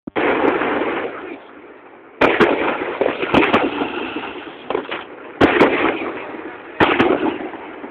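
Fireworks going off: a string of about six sharp bangs, one every second or two, each trailing off over a second or so.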